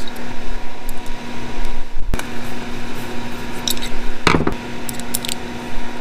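Small metal and plastic shifter parts being handled and fitted together by hand on a workbench: scattered light clicks and clinks, a sharp knock about two seconds in and a louder clunk a little after four seconds, over a steady hum.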